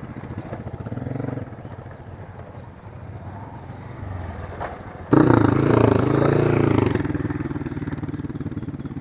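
Motorcycle engine running at low revs, then suddenly louder about five seconds in and revving up and down for a couple of seconds before settling to a steady run.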